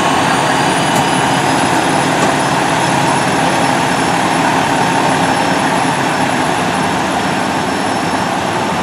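Fire engine and rescue ambulance engines running, a loud steady rumble with a thin high whine that rises over about the first second and then holds.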